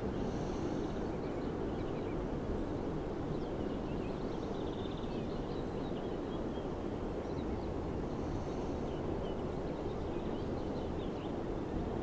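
Steady, muffled low rushing noise, with faint short high chirps now and then.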